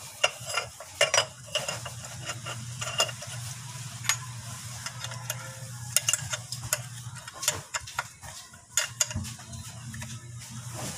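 Hand tools clicking, clinking and scraping on metal engine parts as a radiator hose connection on a truck engine is worked on: scattered sharp knocks at uneven intervals, over a steady low hum that drops away about three quarters of the way through.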